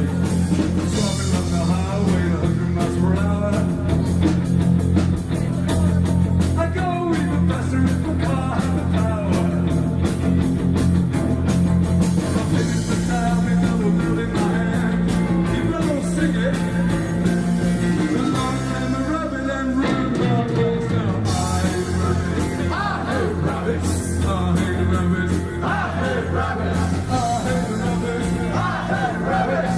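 Live rock band playing a song, with singing over a steady drum beat.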